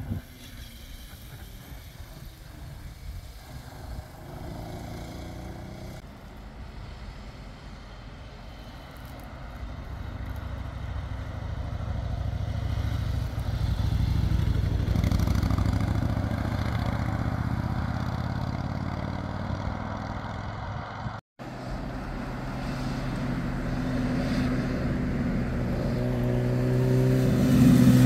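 Motorcycle engines passing one at a time on a road. A cruiser's engine swells past and eases off mid-way. After a brief break, a naked sport bike's engine grows loud and revs near the end.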